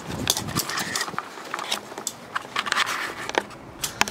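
Handling noise from a handheld camera being picked up and swung around: scattered light clicks, knocks and rustling.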